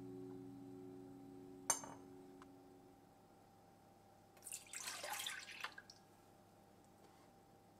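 Liquid poured from a metal measuring cup into a stainless steel mixing bowl, splashing for about a second and a half past the middle. A single sharp click sounds earlier, while soft guitar music fades out.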